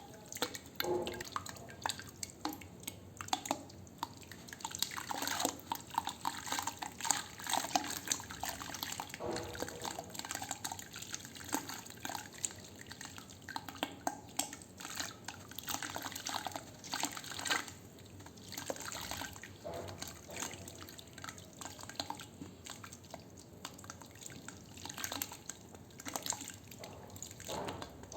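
Wet sand crumbling and falling into water: a steady run of irregular small splashes and drips.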